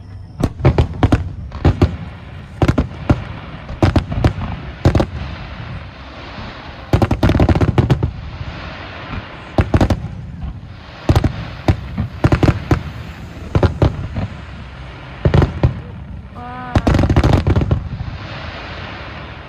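Aerial fireworks bursting in quick succession: dozens of sharp bangs, with two denser stretches of continuous banging and crackle, one midway and one near the end.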